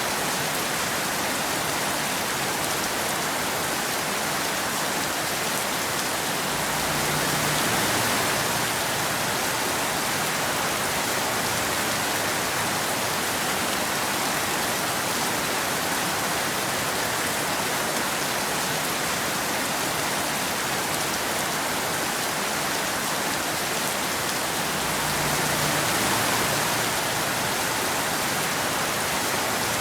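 Steady rain falling, an even hiss with no thunder, swelling slightly twice: about seven seconds in and again near the end.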